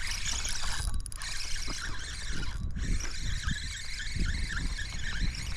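Wind on an action camera's microphone: a low, uneven rumble under a steady hiss, with faint little chirps running through it.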